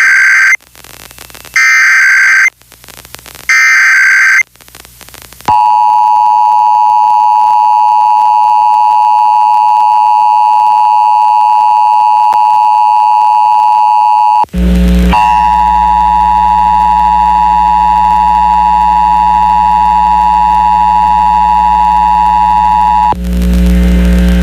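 Emergency Alert System tones on a radio broadcast. First come three short bursts of warbling SAME header data. Then the steady two-tone attention signal runs for about 17 seconds, with a brief dropout partway, after which a loud low hum rides under it; the tones stop near the end, leaving the hum.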